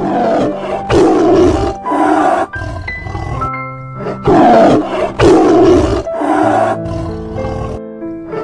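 Lion roaring and growling in six rough bursts, two runs of three with a pause between, over background music with steady held notes.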